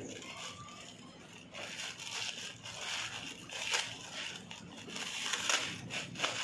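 Plastic courier pouch crinkling and crackling irregularly as it is handled and worked open by hand, with a few sharper crackles in the second half.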